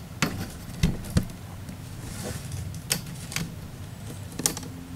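Handling noise from a carbon spinning rod being laid down and moved on a desktop: about six light, separate knocks and clicks over a low steady hum.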